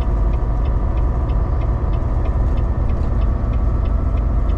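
Semi truck running at highway speed heard from inside the cab: a steady low engine and road rumble. Over it runs a light, regular ticking about three times a second.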